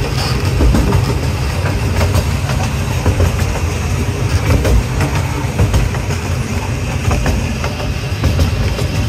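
Miniature railway train heard from aboard a coach as it rolls along the track: a steady low rumble with frequent sharp clicks of the wheels over the rail joints.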